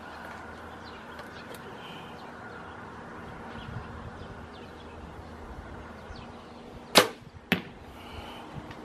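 An arrow shot from a bow into a cardboard box target: two sharp strikes about half a second apart near the end, the first the louder.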